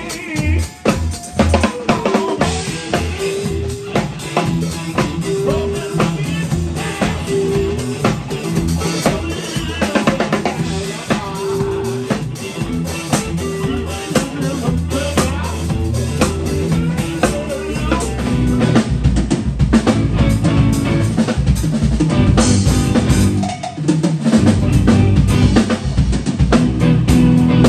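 Live band playing loud, with a drum kit hit hard and busy over repeating bass and guitar notes. The music changes about two-thirds of the way through, with a brief drop just before a new section.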